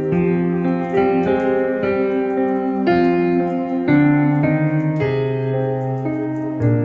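Piano music: a slow melody over sustained chords, with a new note or chord about every half second to a second.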